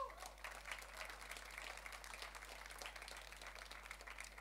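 Audience applauding, a faint, steady patter of many hands clapping.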